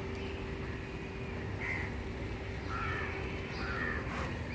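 Crows cawing several times, short separate calls, over a steady low background rumble.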